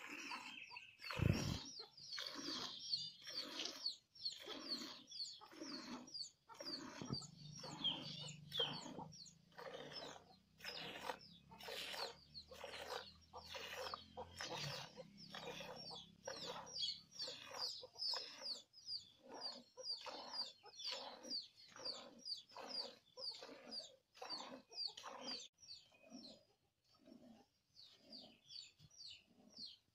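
Jets of milk squirting into a steel pail as a cow is milked by hand, in a steady rhythm of about two squirts a second.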